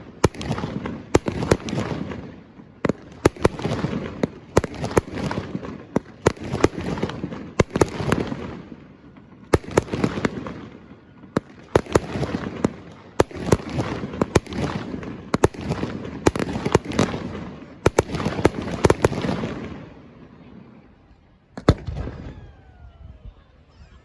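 Fireworks display: a rapid barrage of sharp bangs and crackles, each followed by a rolling rumble, easing into a brief lull near the end before the bangs resume.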